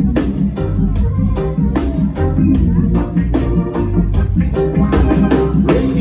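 Live reggae band playing an instrumental groove: a heavy bass line, a steady drum beat and organ, with a cymbal crash near the end.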